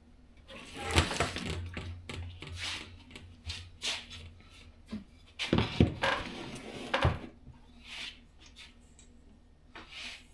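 Irregular knocks, clunks and scraping of a heater and 2x4 wood blocks being handled and set in place, busiest about a second in and again around five to seven seconds in.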